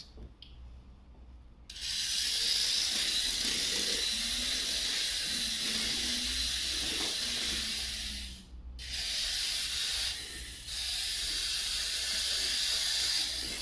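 A small toy remote control car's electric motor and gears running with a steady hissing whirr as it drives. The sound starts sharply, stops for a moment about midway as the car halts, and then starts again.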